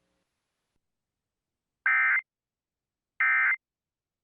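Emergency Alert System end-of-message data tones: two short bursts of the digital SAME signal, about a second and a half apart, signalling that the alert has ended.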